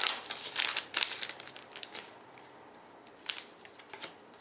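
Plastic trading-card pack wrapper crinkling and tearing as it is opened. The rustling is loudest in the first second or two, then gives way to a few soft clicks as the cards are handled.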